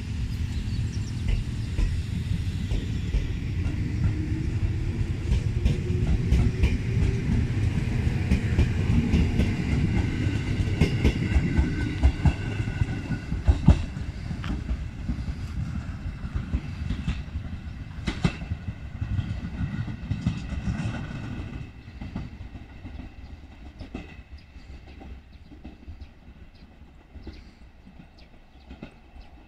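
JR Kyushu 787-series electric express train pulling away from the platform: a heavy low rumble with a rising whine as it gathers speed, and wheels clacking over rail joints. It fades away over roughly the last eight seconds.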